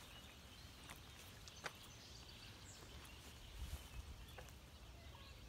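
Near silence: faint outdoor background, with a sharp click about a second and a half in and a brief low rumble a little after the middle.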